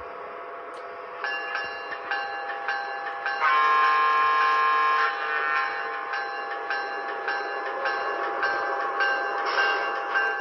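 Sound decoder of an HO-scale Broadway Limited Pennsylvania P5a boxcab electric locomotive, playing through the model's small on-board speaker: a steady hum, then from about a second in a regular clicking of rail joints about twice a second. About three and a half seconds in comes one loud horn blast lasting nearly two seconds.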